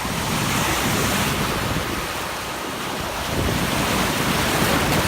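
Ocean surf washing, with wind buffeting the phone's microphone.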